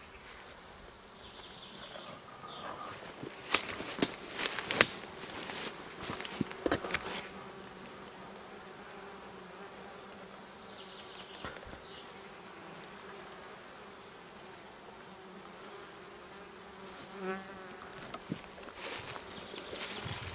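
Honeybees buzzing steadily around an opened wooden beehive. Between about three and seven seconds in, several loud wooden knocks and clunks as hive boxes and frames are handled.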